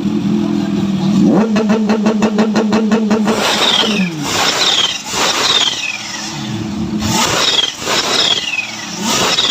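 Supercharged Kawasaki inline-four motorcycle engine held at a steady fast idle, then blipped hard again and again. After each blip a high whistle falls in pitch as the revs drop.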